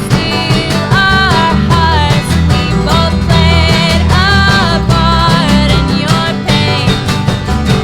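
A band playing a song, with guitar prominent.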